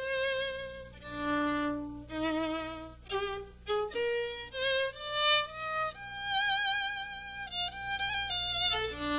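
Solo violin playing a slow melody of held notes with vibrato, accompanying a dance.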